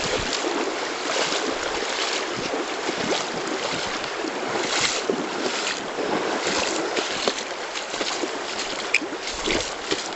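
River water rushing over stones, with irregular splashing from a person wading across the stream.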